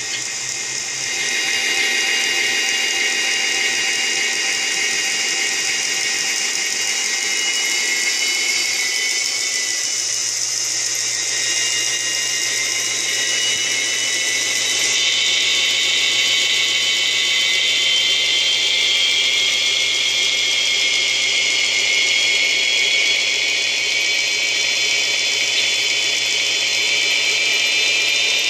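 Sound decoder playing an EMD SD40-2 diesel locomotive engine sound through a single small loudspeaker: a steady, thin mechanical drone with little bass. It grows louder about a second and a half in and shifts up in pitch about halfway through.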